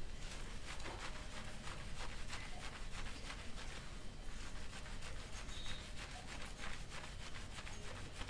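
Fingers scrubbing shampoo lather through wet hair and over the scalp: a continuous run of quick, irregular wet squishing and crackling strokes.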